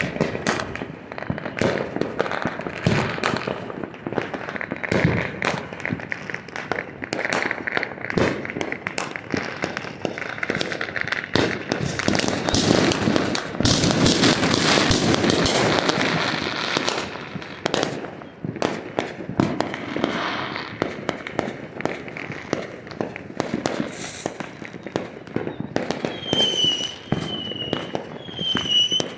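Illegal consumer fireworks and firecrackers going off all around: a dense, irregular run of bangs and crackling pops that overlap without a break. Near the end, a short high chirp repeats about four times, roughly once a second.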